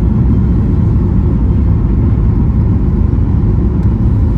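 Steady low rumble of an airliner's passenger cabin in flight on approach to landing: engine and airflow noise heard from inside the plane.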